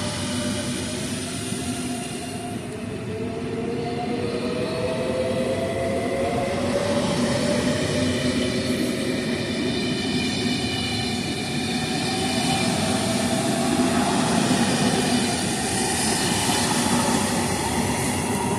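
Frecciarossa high-speed electric train running past at close range, gathering speed: steady wheel-on-rail rumble with the electric traction whine rising slowly in pitch.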